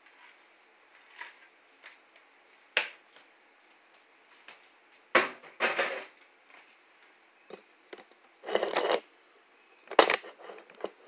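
Kitchen handling clatter: scattered knocks and clinks of cookware and utensils, with a few short rustling or scraping bursts about halfway through and again near the end.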